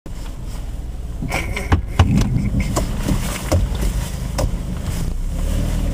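Low, steady rumble of a car driving, with a scatter of sharp clicks and knocks in the first half.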